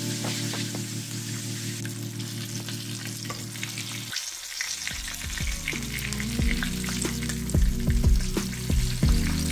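Food sizzling as it fries in a pan of hot oil, with scattered clicks. Background music with steady low notes plays underneath.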